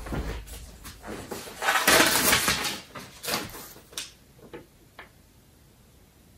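Packing material and a paper note being handled: a rustle about two seconds in, then a few light clicks and taps that die away.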